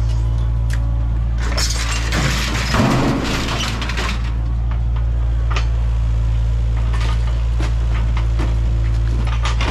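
Kubota KX057-5 mini excavator's diesel engine running steadily while its bucket and thumb tear into a minibus body, with repeated crunching, cracking and breaking of sheet metal and glass. The loudest crash comes about three seconds in.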